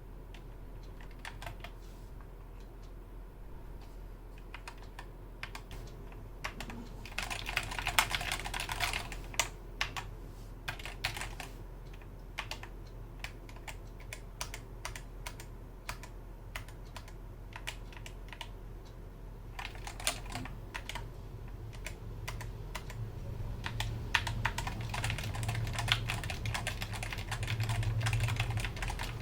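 Skyloong SK61 keyboard's Gateron optical switches being typed on. Scattered single keystrokes at first, then quick runs of typing, with the densest run in the last few seconds.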